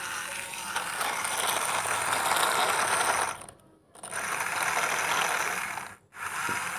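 Plastic toy dump truck's small geared drive running steadily, with two brief drop-outs to near silence, about three and a half seconds in and again near six seconds.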